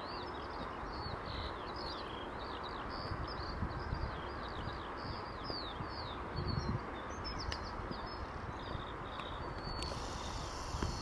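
Small birds chirping: many short falling notes, several a second, over a steady low rushing background.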